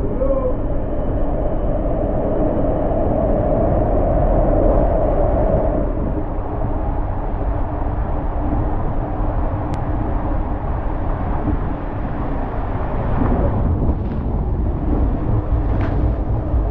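Inflatable raft sliding fast through an enclosed water-coaster tube: a steady, loud rush of water and air with heavy low buffeting, muffled in the highs.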